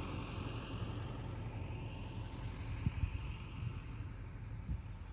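Pickup truck engine idling, a steady low rumble that fades slightly, with a few soft knocks about three seconds in.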